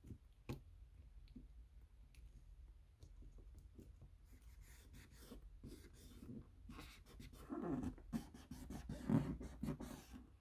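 Close handling sounds of a phone repair: scattered small clicks and taps of the battery and parts inside an iPhone XS Max housing, then rubbing and pressing over the battery, loudest in the last few seconds.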